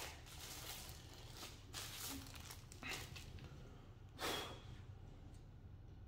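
A low steady hum with a few short, soft swishes on top, the loudest about four seconds in.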